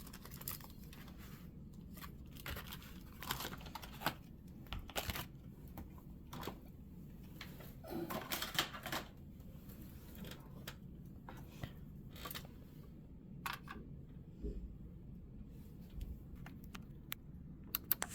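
Plastic and cardboard packaging being handled and opened: scattered light clicks and brief rustles, with a longer crinkling rustle about halfway through.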